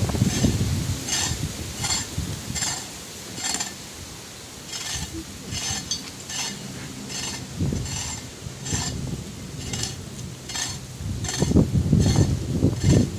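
Metal hoe blade scraping and chopping into dry soil and grass in quick repeated strokes, about two a second, with a short pause about four seconds in. A louder low rumble comes near the end.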